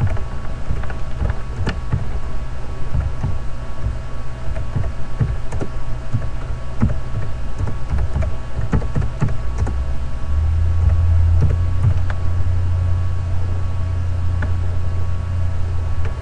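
Computer keyboard typing and clicking in irregular short taps, over a steady low hum that grows louder about ten seconds in.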